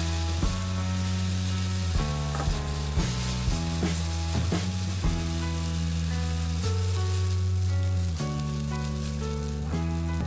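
Mashed-tofu and vegetable batter sizzling in cooking oil in a square non-stick pan as it is spread out with a silicone spatula, with background music over it.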